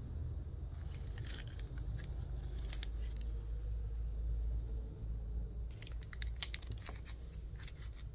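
Clear plastic comic-book sleeve crinkling and crackling as it is handled, in two bouts, the second near the end, over a steady low hum.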